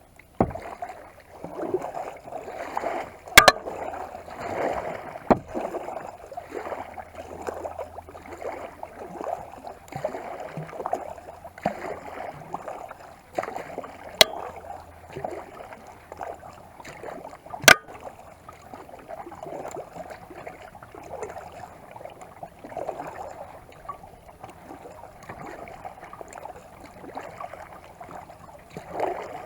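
Kayak paddle strokes dipping and splashing in the water in a steady rhythm, with a few sharp knocks.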